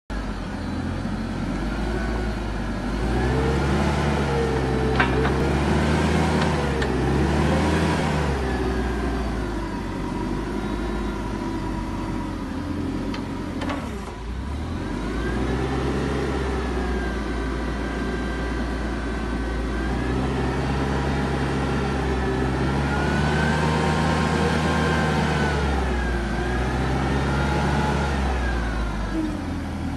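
LPG engine of a 2.5-ton forklift running and revving up and down in long swells as it drives the hydraulics to raise and lower the triplex mast. There is a sharp click about five seconds in.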